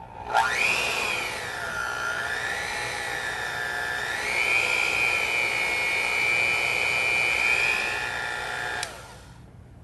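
Cuisinart Power Advantage Plus 9-speed hand mixer motor running with the beaters in the air. The whine glides up as it starts and wavers. It steps up to a higher pitch about four seconds in as the speed button is pressed, holds there, then cuts off about a second before the end.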